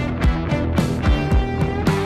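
Music with a steady drum beat and guitar.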